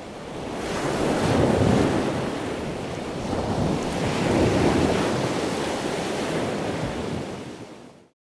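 Open sea wind and waves, with wind buffeting the microphone. The noise rises over the first second, swells twice, and fades away just before the end.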